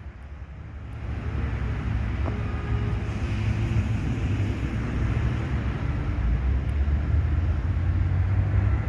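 Tri-axle intercity coach's diesel engine running with a steady low rumble that builds up over the first couple of seconds.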